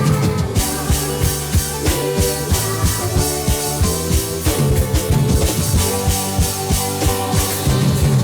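Live band music: a drum kit playing a steady beat with bass and sustained keyboard chords, no vocals.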